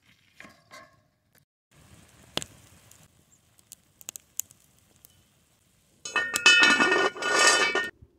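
Light metal clicks and a soft hiss, then near the end about two seconds of loud metal-on-metal scraping and ringing against a cast-iron Dutch oven, in two strokes.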